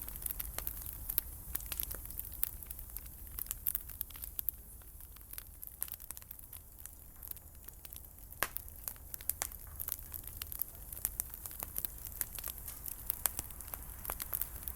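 Wood campfire crackling, with irregular sharp pops and snaps scattered throughout, over a low steady hum.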